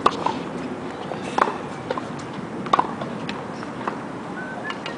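Tennis ball struck by a racket on a hard court: three sharp pops about a second and a half apart, with lighter knocks of the ball bouncing in between.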